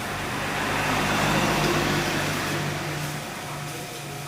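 A car driving past, its engine and tyre noise swelling and then fading away.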